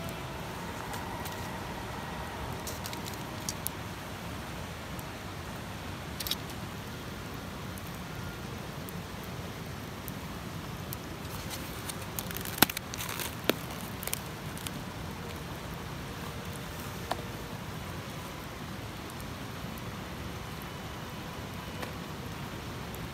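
Wood campfire crackling steadily, with scattered sharp pops, the loudest about halfway through.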